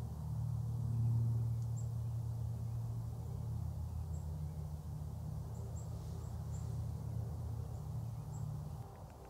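A steady low rumble, strongest about a second in, that drops away near the end, with faint short chirps of small birds scattered through it.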